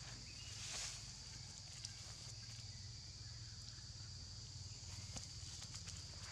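Quiet outdoor ambience on dry leaf litter: a steady high hiss over a low hum, with a brief rustle of dry leaves about a second in and a few faint ticks.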